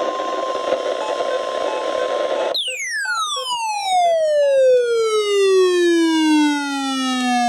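A burst of hiss with a faint steady tone, then a loud siren-like tone that falls steadily in pitch from very high to low over about five seconds.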